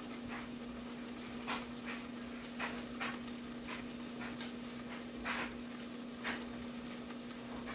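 Kielbasa sizzling in a covered electric skillet, with short spits and pops every half second to second, over a steady low hum.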